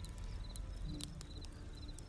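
Wood campfire burning and crackling: scattered sharp pops over a steady low rumble of flame, with the loudest pop about a second in.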